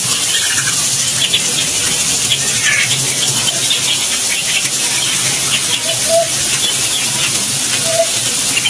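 Small birds chirping in short, quick notes over a steady rushing hiss, with a few short lower notes about six and eight seconds in.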